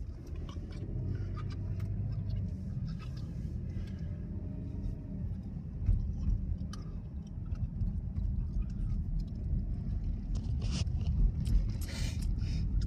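Car driving, heard from inside the cabin: a steady low road and engine rumble, with a few short sharp noises near the end.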